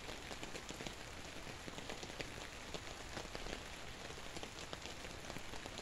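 Light rain falling steadily: an even hiss with a dense patter of small drop ticks on the tarp flysheet overhead.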